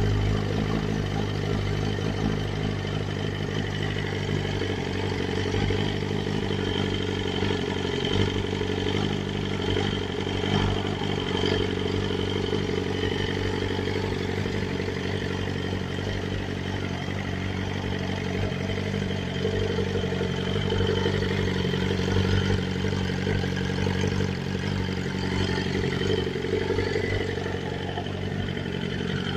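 BMW S1000RR's inline-four engine running at a steady idle.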